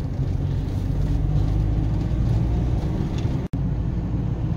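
Volkswagen Transporter van driving along, heard from inside the cab: a steady low rumble of engine and road noise, broken off for an instant about three and a half seconds in.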